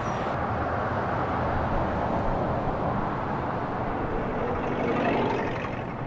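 City street ambience: a steady wash of traffic noise that swells louder about five seconds in, then eases.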